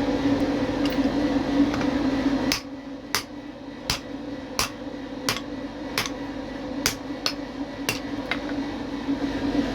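Steady machine hum that cuts off about two and a half seconds in, followed by a hammer tapping metal, about ten light, ringing strikes at roughly one and a half a second.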